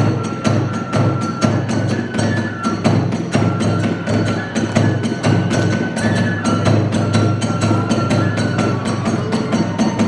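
Kagura hayashi ensemble playing a quick, steady beat: drum and clashing hand cymbals struck several times a second under a shrill bamboo flute melody.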